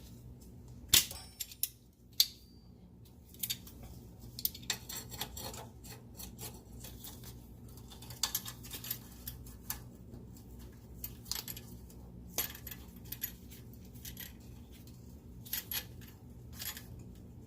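Irregular metallic clicks and clanks as locking pliers (vise grips) grip and work a partly cut exhaust Y-pipe back and forth to snap it off, with the two loudest knocks a second or two in.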